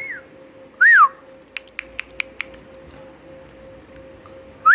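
Pet parrot whistling: one loud note that rises and then falls about a second in, followed by a quick run of five sharp clicks, and another rising whistle starting near the end.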